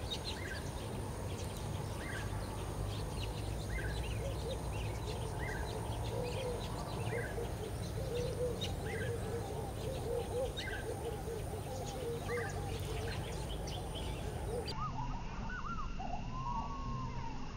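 Wild birds calling: a short rising note repeats about once a second over a dense chorus of low chattering calls and a steady low rumble. Near the end this gives way abruptly to a few slower, curving calls.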